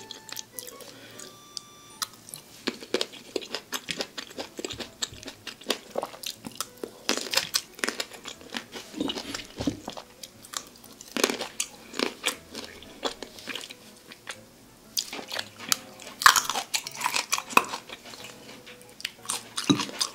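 Close-miked biting and chewing of fresh cherries: irregular mouth clicks and bites that start about two seconds in.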